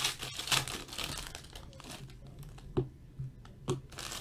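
Foil wrapper of a hockey card pack crinkling as it is torn open by hand, then two short sharp knocks near the end.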